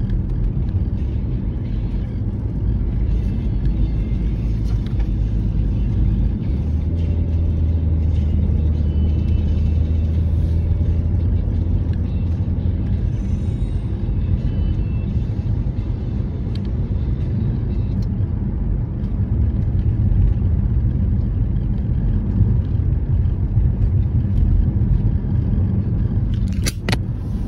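Steady low road rumble of a car heard from inside the cabin while driving, with a low hum coming and going and a single click near the end.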